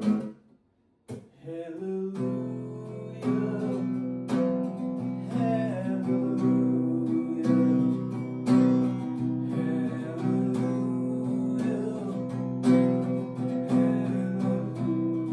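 Acoustic guitar, a bit out of tune, strummed in an empty room with its natural reverb. The playing stops briefly near the start, then carries on with steady strummed chords.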